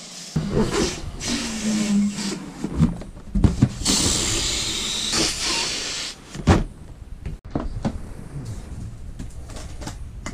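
Electric balloon inflator blowing air into latex balloons in surges of loud rushing hiss, the loudest about four seconds in, with short rubber squeaks and knocks as the balloons are handled and pressed into a plastic sizer; quieter handling taps follow in the second half.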